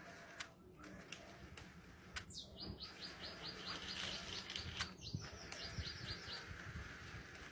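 A bird singing a long run of quick, evenly repeated short notes, about five a second, starting about two seconds in and lasting about four seconds. Scattered faint clicks and knocks sound under it.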